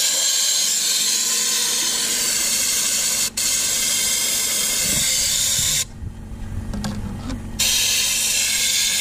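Compressed-air spray gun with a red suction canister hissing loudly as it blasts degreaser through a removed EGR pipe to wash out carbon deposits. It stops for a split second a little over three seconds in, then pauses for nearly two seconds past the middle before firing again.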